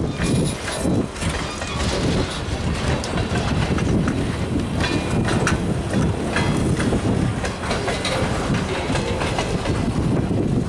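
A loaded freight train rolling past: centerbeam lumber flatcars and boxcars, their steel wheels rumbling steadily on the rails. Sharp metallic clicks and clanks come through now and then.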